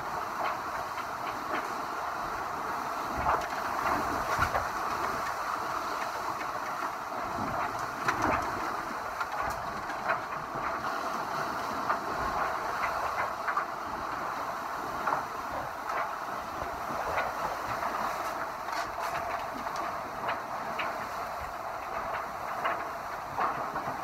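Steady rush of wind and water around an IMOCA 60 racing yacht sailing fast through a big swell, with scattered short splashes and knocks.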